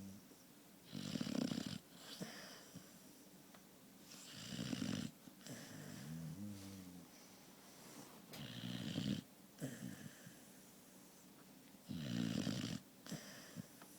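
Sleeping pet snoring loudly: a rasping snore about every three to four seconds, four in all, with a softer pitched breath between them.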